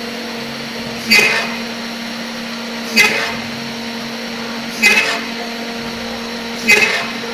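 Homemade CNC machine with its spindle motor running at a steady hum, and a short, loud cutting screech about every two seconds, four times, as the tool bites into the workpiece in a repeating cycle.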